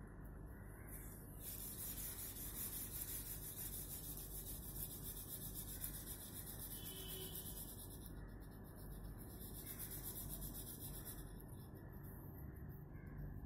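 Pastel crayon rubbing on paper in fast colouring strokes. It is faint, with two longer stretches of scratchy strokes.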